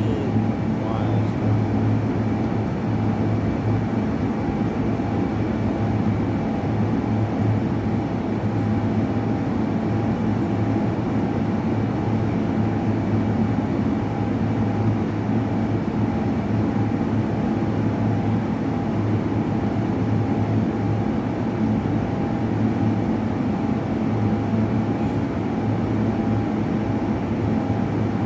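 A machine running steadily: a constant low hum with fainter higher whining tones, unchanging throughout.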